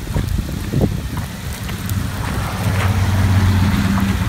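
Pickup truck driving past on a flooded, rain-soaked street. Its low engine hum swells to its loudest about three seconds in as it passes close, over the steady hiss of rain.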